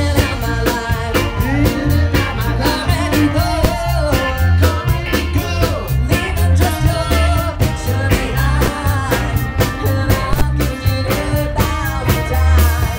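Live soul band playing: a woman singing lead over electric bass guitar and a drum kit keeping a steady beat, with saxophone and trumpet in the band.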